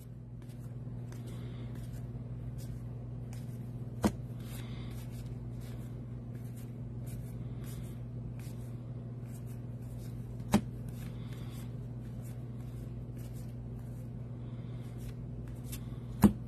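Baseball trading cards being flipped through one by one in the hand, each card sliding off the stack with a soft, short rub. Three sharp clicks stand out, spread several seconds apart, over a steady low hum.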